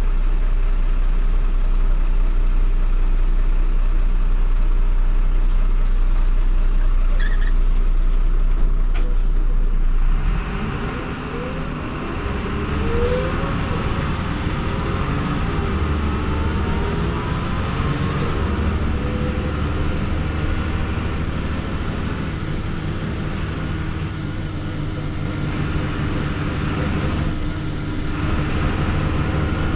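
Jelcz M121M city bus heard from inside the passenger cabin, its diesel engine running with a steady low drone. About ten seconds in the drone drops away, and engine and drivetrain whines rise and fall in pitch as the bus changes speed, over a steady rumble.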